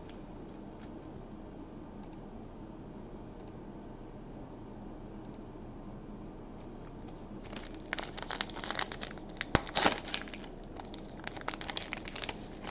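Upper Deck hockey card pack wrapper crinkling and tearing as it is ripped open. It starts about seven and a half seconds in as a dense run of crackles, after faint room tone with a few soft ticks.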